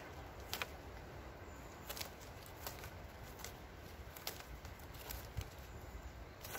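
Synthetic rope being pulled through and wrapped around a wooden pole as a knot is tied: a scatter of short rustles and swishes of the cord, about half a dozen.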